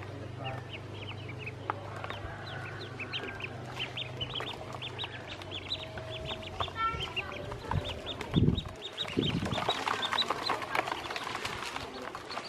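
A brood of ducklings peeping constantly, many short high cheeps overlapping. Two dull low thumps come about eight and a half and nine seconds in.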